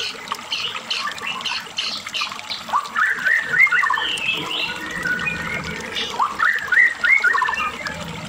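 White-rumped shama (murai batu, Medan type) singing a full, varied song of quick chirps and whistles, with a run of rising whistled notes about three seconds in and again about six seconds in.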